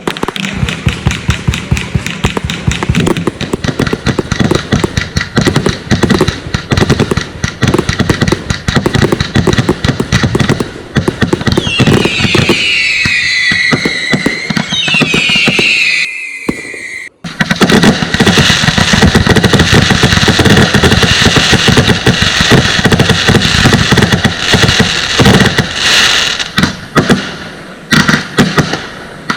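Consumer firework barrages firing rapid volleys of bangs and crackles. For a few seconds past the middle, several falling whistles sound over the bangs. After a brief break the firing starts again just as densely.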